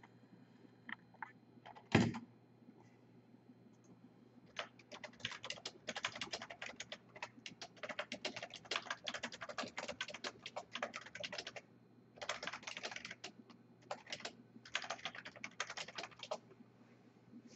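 Typing on a computer keyboard in fast runs of keystrokes with short pauses between them, after a single thump about two seconds in.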